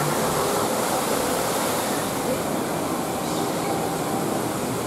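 Steady rushing of a waterfall, with faint crowd chatter underneath.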